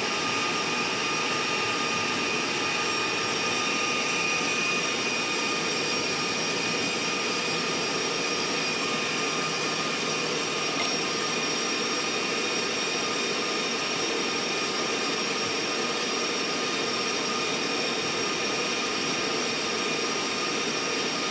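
Steady rushing ride noise of a moving Amtrak passenger train heard from inside the car, with a few faint steady whining tones over it.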